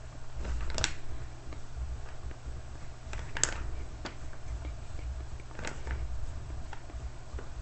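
Small plastic bags of diamond-painting drills being handled: a few brief crinkles and clicks, the loudest about three and a half seconds in, over a low steady hum.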